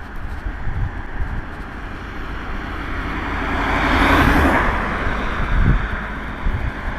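A car passing on the road alongside: its tyre and engine noise swells to a peak about four seconds in and then fades away, over a low, gusty rumble.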